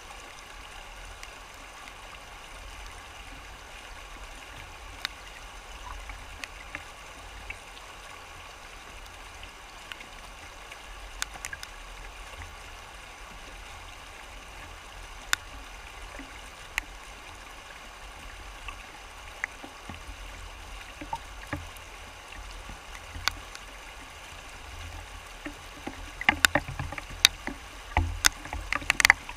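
Fast river water rushing over rocks in a steady wash. Scattered sharp clicks run through it, thickening into a quick run of louder clicks and knocks over the last few seconds.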